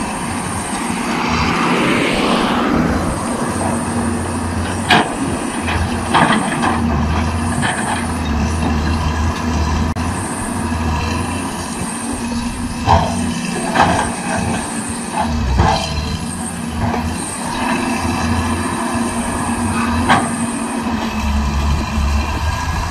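Caterpillar 320D hydraulic excavator's diesel engine running, its low drone rising and falling with load as the arm and bucket work. Sharp clanks stand out about five, six, thirteen, fourteen, fifteen and twenty seconds in.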